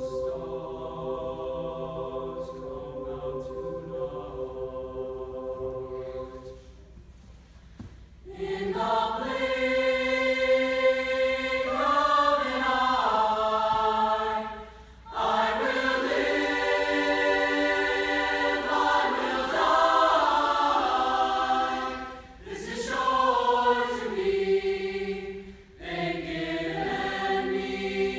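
High school choir, mixed and girls' voices together, singing sustained chords in a choral piece. It starts quieter, dips to a brief lull about eight seconds in, then comes back much louder in long phrases with short breaths between them.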